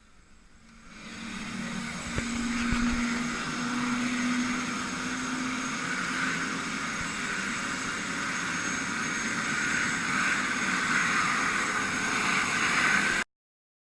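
Helicopter running close by: a steady rushing engine and rotor noise that swells over the first couple of seconds, holds, and cuts off suddenly near the end.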